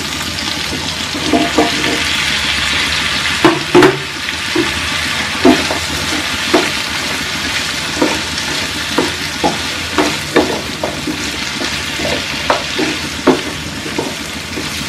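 Drumstick (moringa) pieces sizzling in hot oil with onion and tomato in a nonstick pan, a steady hiss. A wooden spatula stirring them knocks and scrapes against the pan about once a second.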